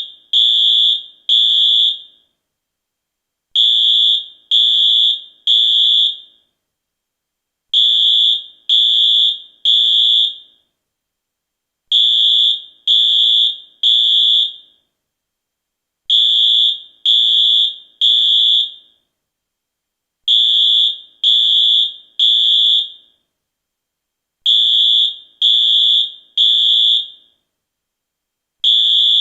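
US fire alarm sounding the temporal-three evacuation signal: loud, high-pitched electronic beeps in groups of three, each group followed by a pause of about a second and a half, repeating steadily.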